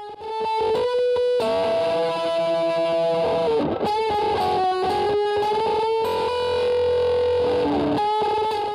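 Distorted electric guitar playing a melody of long held notes, cutting off just before the end.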